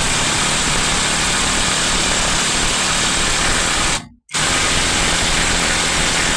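Impact wrench running flat out, a loud steady hammering rattle that cuts out abruptly for a moment about four seconds in and then carries on.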